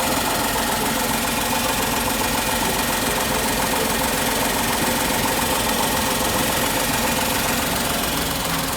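Tata Tigor BS6's three-cylinder petrol engine idling steadily, heard close up with the bonnet open.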